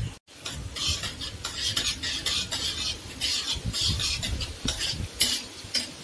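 A steel spoon stirring whole spices in hot oil in a kadhai, scraping and clinking against the pan in short, irregular strokes about twice a second.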